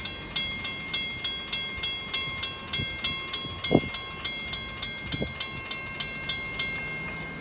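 Railroad grade-crossing bell ringing in an even beat of about two to three strokes a second, then stopping about seven seconds in as the crossing gates rise, the sign that the train has cleared. Two low thuds come partway through.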